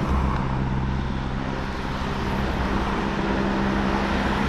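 Cars driving past on a country road, over a steady low engine drone.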